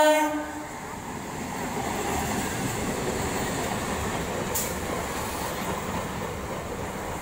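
Indian Railways EMU electric local train running past on the next track, a steady rumble of wheels on rail. The tail of its horn cuts off just as it begins, and there is one sharp click about four and a half seconds in.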